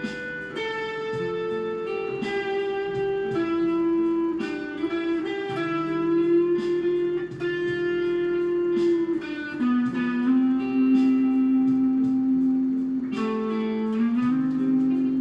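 A guitar being played: plucked notes and chords, some notes held and ringing for several seconds before the pitch shifts.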